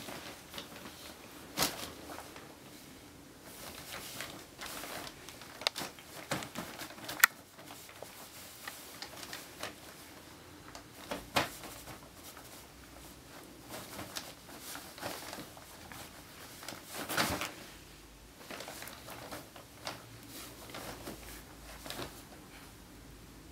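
Two cats play-wrestling inside a nylon fabric pet carrier: irregular rustling and scuffling, broken by scattered sharp taps and knocks as paws and bodies hit the fabric and its frame.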